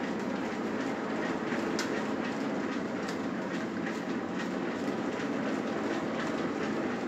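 Old watermill's gearing running: a large toothed wheel turning with a steady mechanical rumble and light, irregular clicking.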